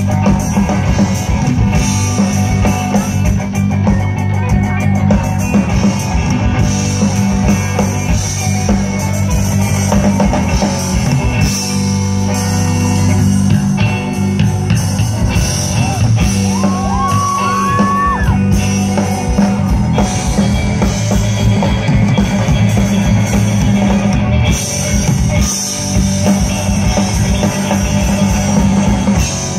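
Live rock band playing loudly through a PA: electric guitars, bass guitar and drum kit.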